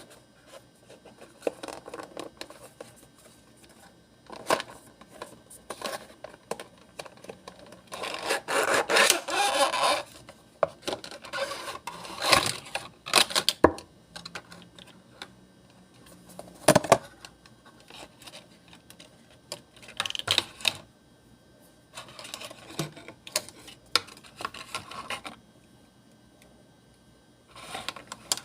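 A parcel being opened by hand: irregular rustling, scraping and tearing of packaging, with sharp clicks and taps in between. The loudest part is a long tearing rustle about eight to ten seconds in.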